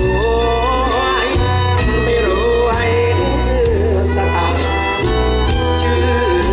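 Male singing with a live Thai luk thung band: drum kit, keyboard and a prominent bass line under a wavering melody.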